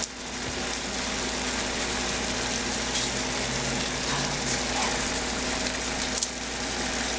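Chicken wings frying in a stainless steel pan, a steady sizzle, while barbecue sauce is poured over them.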